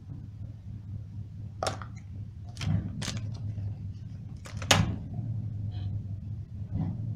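A handful of sharp clicks and knocks from small objects being handled and set down, the loudest about four and a half seconds in, over a steady low hum.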